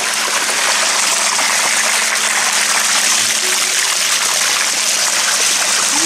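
Hot-spring water running steadily over rocks close by, a continuous rushing of flowing water.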